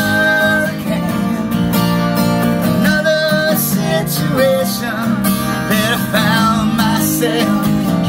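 Acoustic guitar strummed steadily while a man and a woman sing together, with held sung notes near the start and again about three seconds in.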